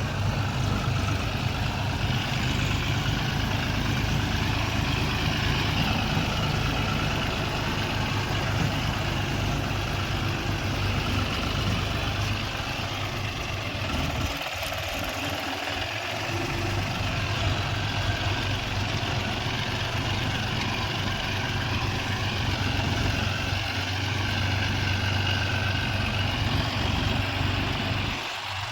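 Heavy diesel engine running steadily at low revs, a constant deep hum. The low part of the note drops away briefly about halfway through.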